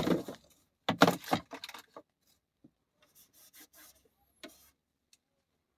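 Workshop handling noises: a cluster of sharp metallic clicks and clinks about a second in, then scattered lighter clicks and rubbing that die away before five seconds.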